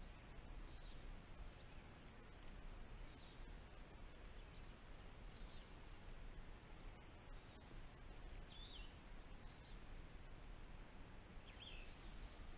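Quiet lakeside ambience: a bird repeating a short high chirp about every two seconds over a steady high-pitched insect drone and faint hiss.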